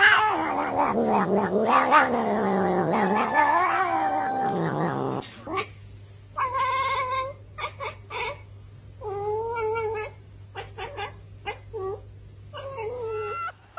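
A domestic cat's long, wavering yowl that slides up and down in pitch. It stops after about five seconds. Then a tabby cat gives a series of short calls, each less than a second, over a faint low hum.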